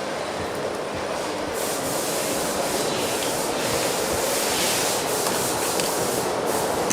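Steady factory-floor din on a tablet assembly line: a continuous even rushing noise of machines and ventilation, growing slightly louder toward the end.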